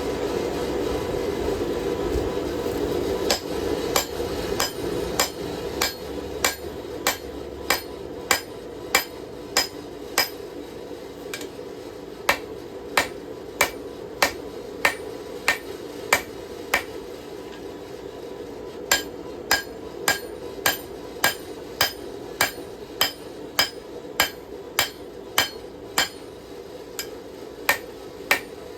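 Hand hammer striking hot steel on an anvil in a steady rhythm, about one ringing blow every half second or so, starting a few seconds in, with a short pause about two-thirds through, while the blade's notch is driven in. A steady forge rush runs underneath.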